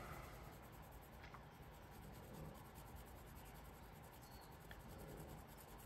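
Near silence: room tone with faint light rubbing and a couple of soft ticks.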